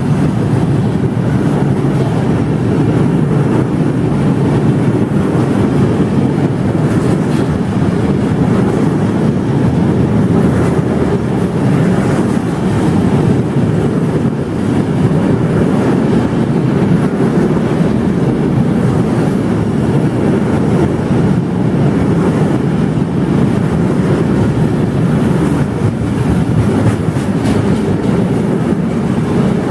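Freight train of covered hopper wagons rolling past close by: a steady, loud rumble of steel wheels on the rails, with occasional clacks.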